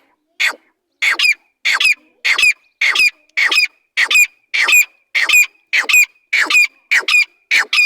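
A teetar (francolin) calling: a loud, harsh call repeated in quick succession, about one and a half calls a second, each ending in a short high note.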